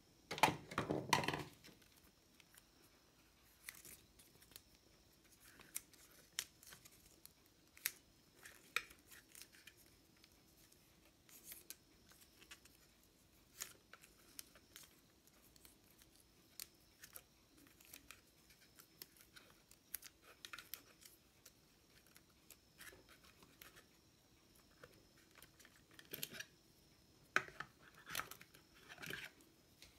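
Scattered clicks, scrapes and rustles of hands working wires and insulating tape in a water pump motor's terminal box, with a louder handling noise about a second in and a cluster of sharper clicks near the end.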